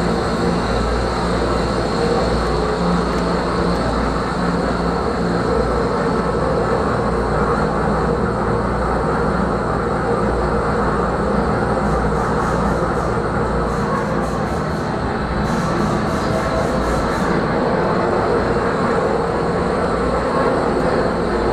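Strong Scott 150 cu ft ribbon blender running empty, its 30 HP Baldor motor turning the mild-steel ribbon agitator in the trough. The running noise stays steady and even throughout.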